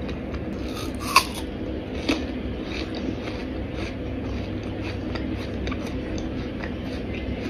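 Close-miked chewing of crisp iced fruit: wet crunches and clicks, the loudest about a second in and another about two seconds in, over a steady low hum.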